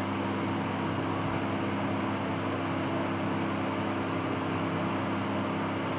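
Steady background hum with a constant hiss, unchanging throughout, with no other sounds.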